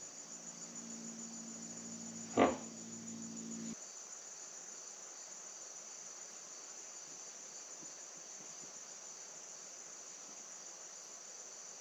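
Steady high-pitched chorus of insects. A low hum sounds under it for the first few seconds and stops suddenly, with a single knock shortly before it stops.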